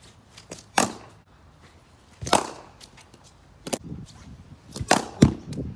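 Sharp knocks of a cricket ball during batting practice: a bat striking the ball and the ball pitching on the synthetic net surface. About five knocks, the loudest about two and a half seconds and five seconds in.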